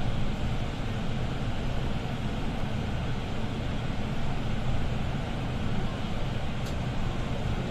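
Setra S415 LE business city bus running at low speed, heard from inside the passenger cabin. Its diesel engine and rolling noise make a steady, low rumble, with one faint click near the end.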